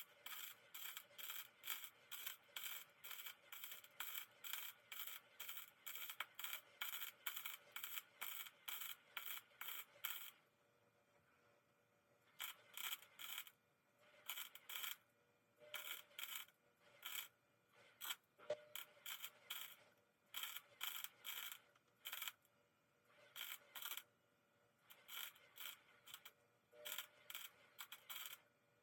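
Hand tool worked over metal in short rasping strokes, about two a second, stopping briefly about ten seconds in and then going on in shorter, uneven runs.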